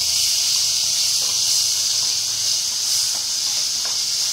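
Steady hiss of tomatoes cooking in a pot on a portable stove, with a few faint light ticks.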